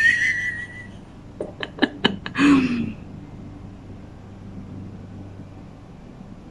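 A woman's short high-pitched squeal, then a few soft clicks and a brief low vocal hum. After that only a faint steady room hum remains while she brushes on eyeshadow.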